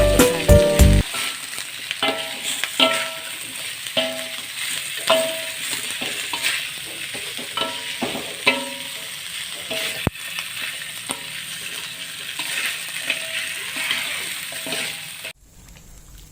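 Spice paste frying in hot oil, a steady sizzle, while a spatula stirs it with frequent short clinks and scrapes against the pan. The sizzle cuts off suddenly near the end; a bit of music plays in the first second.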